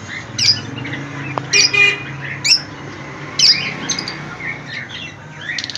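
Caged birds calling: about five sharp, shrill squawks that drop in pitch, one with a harsh rasp, with softer chirps in between and toward the end.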